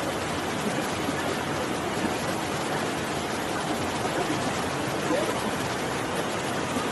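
Fast-flowing muddy floodwater from a rainstorm rushing over a road: a steady, even rush of water.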